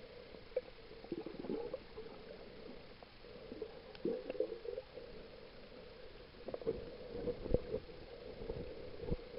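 Underwater sound picked up by a camera in a waterproof housing: a steady low hum with irregular clusters of muffled gurgles and thumps every few seconds.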